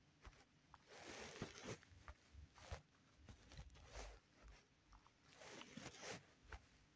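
Near silence: faint, irregular rustles and soft taps, like a phone being handled and its screen tapped.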